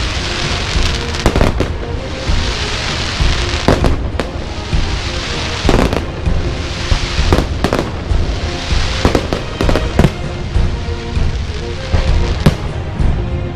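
A fireworks display: sharp bangs of aerial shells about once or twice a second, with swells of hissing crackle between them.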